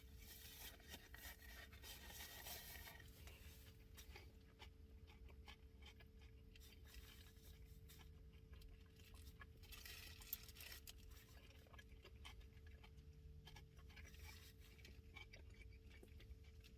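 Near silence: faint chewing and small mouth sounds of a person eating a turkey sandwich, over a steady faint hum.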